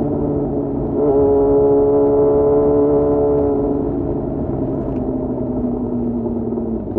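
Yamaha FZ6's 600 cc inline-four engine under way. The revs and level step up about a second in, then the revs slowly fall as the bike rolls off, with another quick rise at the very end.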